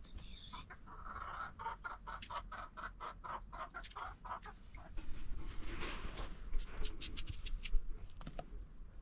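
A hen clucking in a quick run of short, even notes, about three or four a second, for the first few seconds. Then come sharp clicks of a knife cutting a cucumber by hand.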